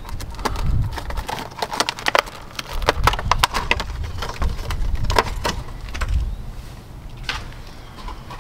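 Hands working with small plastic fuel-filter parts: a quick, irregular run of clicks, taps and crinkles over a low rumble.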